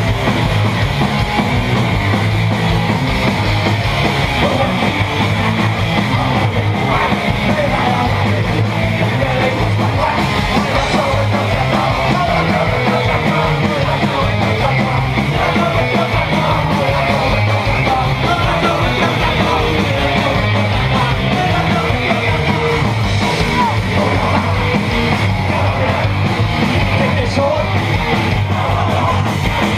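Loud punk-style rock music with yelled vocals over dense, driving instruments.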